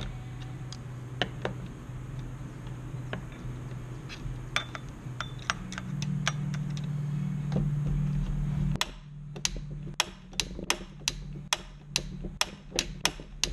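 Small metal clicks and taps of hand tools working the chain-brake band and spring on a Stihl MS 270 chainsaw, over a steady low hum. The hum cuts off suddenly about nine seconds in, leaving a run of evenly spaced light clicks, about two to three a second.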